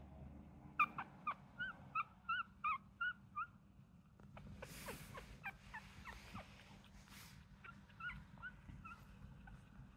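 Two-week-old Chihuahua puppies squeaking: a quick run of about nine short, high squeaks in the first few seconds, then a few fainter squeaks near the end, with a couple of soft rustles in between.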